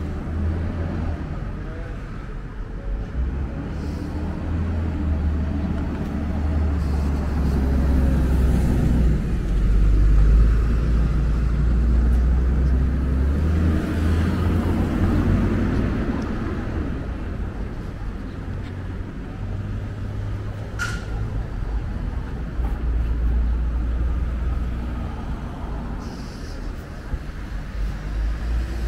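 Street traffic at a town intersection: car engines and tyres passing close by over a steady low rumble, loudest around the middle. A brief high squeak rings out about three-quarters of the way through.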